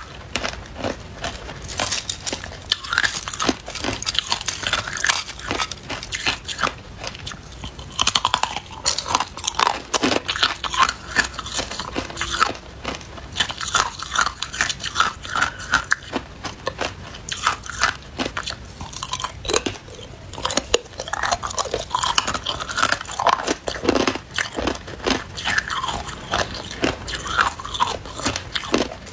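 Thin, brittle sheet ice being bitten and chewed: a dense, irregular run of sharp crunches and crackles.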